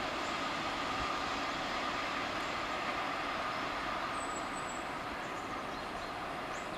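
Freight train of tank wagons rolling away on the rails: a steady rumbling wheel noise with a continuous high tone over it, slowly fading.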